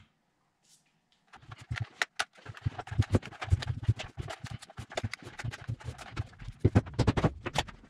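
A quick, irregular run of knocks and clacks, starting about a second and a half in, as an epoxy resin and maple casting is worked loose and pulled from its mold.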